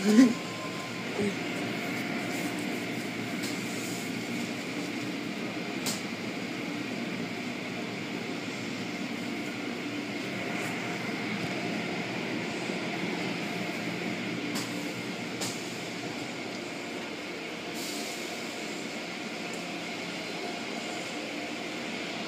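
Automatic car wash running, heard from inside the car: a steady rumbling, hissing wash of spinning cloth brushes and water spray against the car. There is a short louder sound right at the start.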